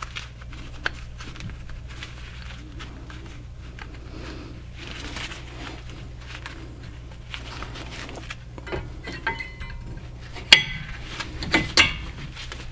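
Metal brake-pad hardware being handled: light clicks and taps as brake pads and their spring clips are seated in the caliper bracket, with two sharper metallic clinks about a second apart near the end.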